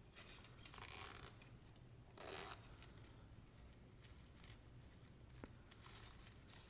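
Faint rustling and scraping of a small coin purse being handled, with a single small click about five and a half seconds in.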